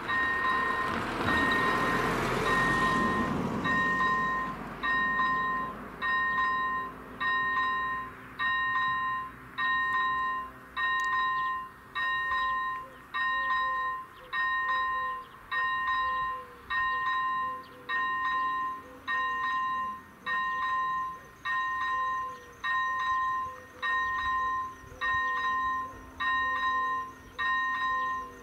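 Czech level crossing warning bell ringing steadily: an electronic two-tone ding repeating about once a second. A broad rush of noise fades out over the first four seconds.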